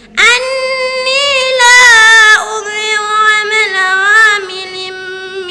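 A young girl reciting the Quran in melodic, drawn-out chant, holding long wavering notes that bend up and down, with one short pause for breath just after the start and one near the middle.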